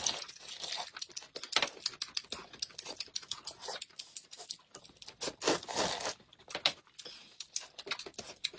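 Two people eating noodle soup: noodles slurped and soup sipped from bowls in short, irregular bursts. The longest and loudest burst comes about two-thirds of the way in.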